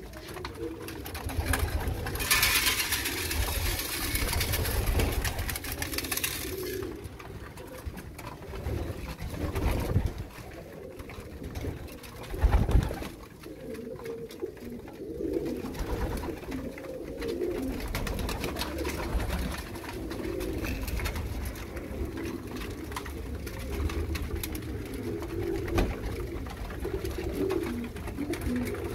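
A flock of racing pigeons cooing on and off throughout. A rushing noise runs from about two to seven seconds in, and a single thud comes near the middle.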